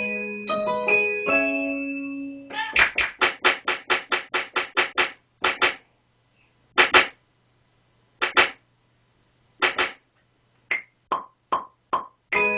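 Keyboard-type chords from beat-making software: a held chord, then a quick run of short stabbed notes, then single hits spaced out with dead silence between them.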